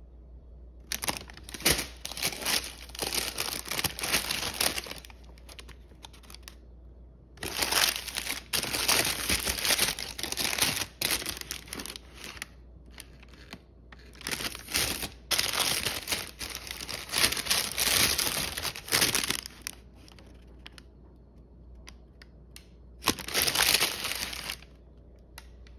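Brown kraft-paper bakery bags crinkling as hands open and handle them, in four bouts of rustling with short quiet gaps between.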